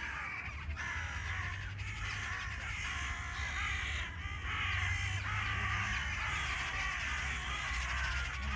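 A large flock of birds screaming, many harsh calls overlapping without a break.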